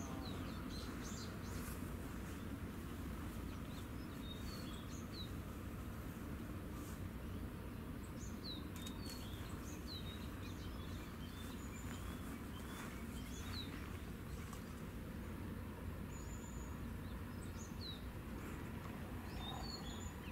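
Small birds chirping in short, high calls, scattered every second or so, over a steady low background rumble.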